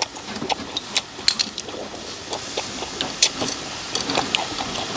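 Scattered sharp clicks and clinks of metal tongs and chopsticks against clam and scallop shells on a charcoal grill's wire mesh, over a faint steady hiss.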